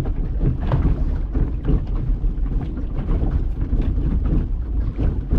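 Small fishing boat under way on open sea: a loud, steady low rumble of the running boat and wind on the microphone, with irregular knocks and splashes throughout.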